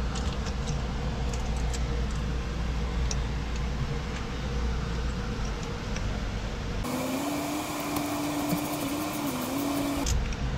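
Faint metal clicks of a plug being threaded into a Sea-Doo Rotax engine by hand, over a steady background hum. About seven seconds in, a different steady mechanical drone with a wavering tone takes over for about three seconds, then cuts off suddenly.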